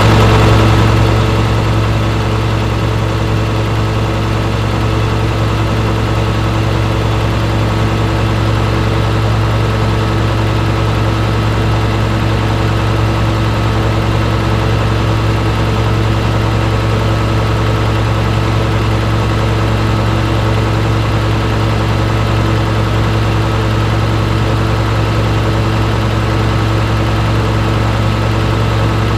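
Engine idling steadily with an even, unchanging hum. The engine has a compression leak into its cooling system, which is making it overheat.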